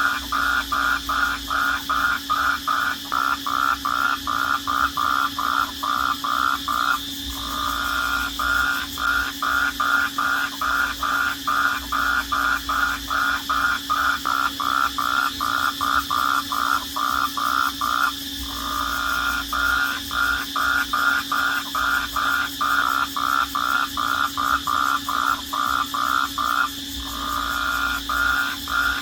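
Night chorus of calling crickets: a steady high trill under a loud, even pulsing call of about three pulses a second, which breaks off briefly three times.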